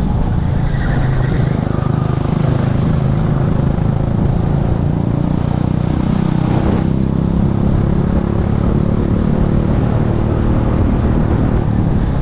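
Race kart's engine running hard, heard from a helmet-mounted camera with wind rush. The engine note dips and rises as the kart brakes for a corner and accelerates out, and there is a brief burst of noise about six seconds in.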